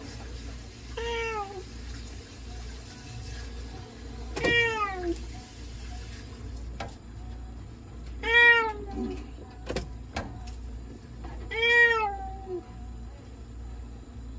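Domestic cat meowing four times from inside a clear plastic oxygen-therapy capsule, each meow falling in pitch at the end, with a couple of short clicks between the meows. A steady low hum runs underneath.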